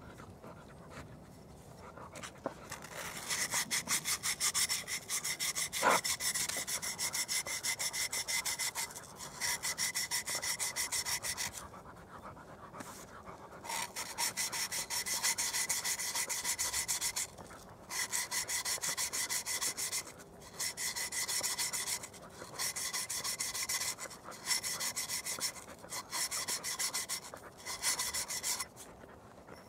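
Abrasive cloth rubbed back and forth over the cut rim of a glass jar in fast, even strokes, in runs of a few seconds with short pauses: the sharp cut edge is being sanded smooth.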